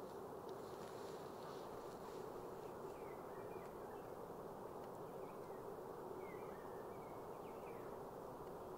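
Faint, steady outdoor ambience: a constant low hum, with a few short, faint chirps between about three and eight seconds in.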